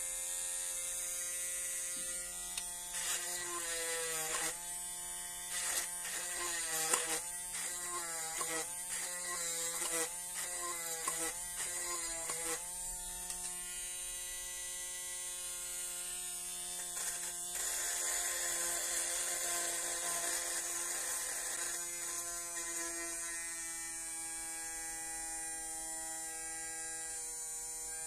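Small homemade DC-motor drill with a brass collet chuck, whining at speed. In the first half its pitch dips and recovers again and again as the fine bit bogs into PVC foam sheet, then it runs at a steady pitch.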